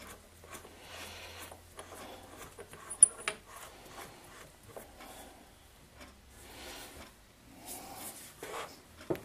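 Hands handling a steel die holder at a lathe: faint rubbing and light metal clicks, with one sharp click about three seconds in.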